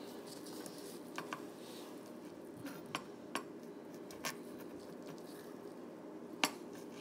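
A few faint, scattered clicks and clinks of kitchen utensils and a cup being handled, over low room noise. The sharpest click comes about three and a half seconds in and another near the end.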